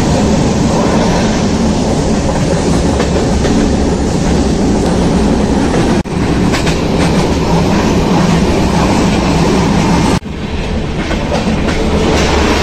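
Passenger train in motion, heard from a window seat inside the coach: a steady, loud running noise of wheels on the rails. It cuts out for an instant twice, about six and ten seconds in.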